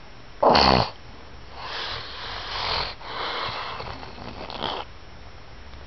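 A man snoring in his sleep: a short, loud rattling snort about half a second in, then two long breathy breaths, the second ending in a brief snort.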